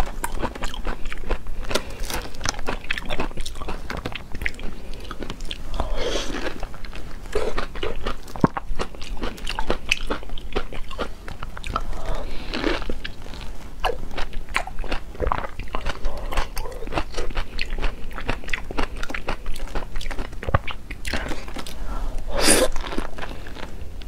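Close-miked biting and chewing into a frozen peach, dense with small wet clicks, with a few longer sucking sounds at the juicy flesh.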